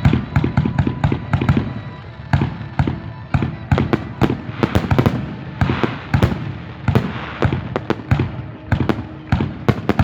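Fireworks going off: a rapid, irregular string of sharp bangs and crackles, several a second, with a big bang right at the start.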